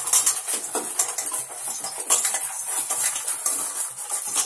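Brinjal slices being mixed by hand in a steel plate to coat them with salt and turmeric: a continuous run of clinks and scrapes of the food and fingers against the metal.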